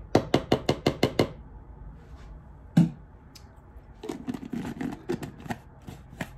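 A spoon tapped quickly against the rim of a mayonnaise jar, about eight sharp clicks in a second, then a single knock. After that come smaller clicks and rubbing as the jar's plastic lid is put back on and the jar is handled.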